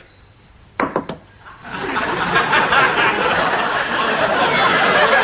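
Two short, sharp sounds about a second in, then audience laughter that starts about a second and a half in and carries on steadily.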